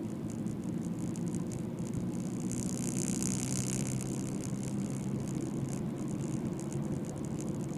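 Car engine running steadily at cruising speed with road and tyre noise, heard from inside the moving car's cabin; a hiss swells for a couple of seconds around three seconds in.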